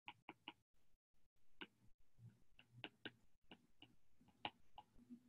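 Faint, irregular ticks of a stylus tip tapping and dragging on a tablet's glass screen while handwriting.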